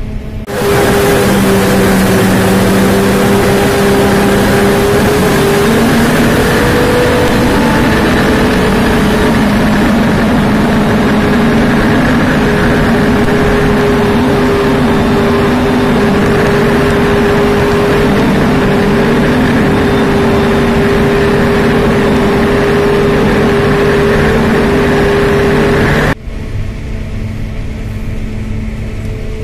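Tractor engine and a trailed forage harvester chopping maize, running steadily under load with a constant whine. The sound jumps to a loud, close level about half a second in and drops back abruptly to a quieter engine drone near the end.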